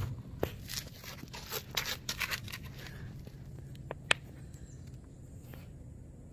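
Hands handling a plastic ATV airbox and a squeeze tube of sealant. A run of soft crinkles and light clicks comes in the first three seconds, then a single sharp plastic click about four seconds in, over a faint low hum.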